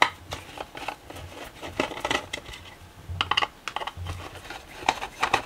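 Screwdriver clicking and scraping on the sheet-metal case of a switch-mode power supply as its screws are undone, with irregular light knocks as the unit is handled on the bench.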